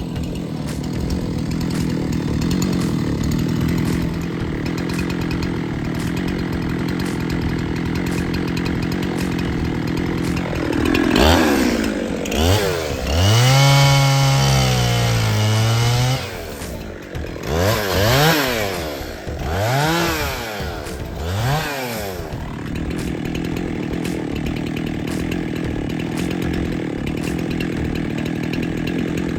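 Two-stroke chainsaw running steadily, as when cutting into the tree. About eleven seconds in, the engine is revved up and held high, drops back, then is blipped up and down four or five times before settling back into steady running.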